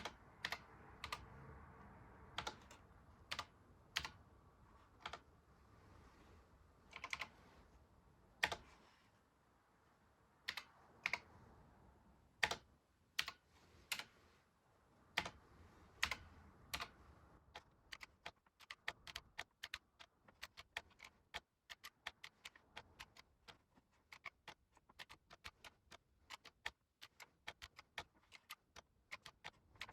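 Keys of a Sharp MZ-80K2E computer keyboard being pressed: separate key clicks about a second apart, then quicker, steady typing from a little past halfway.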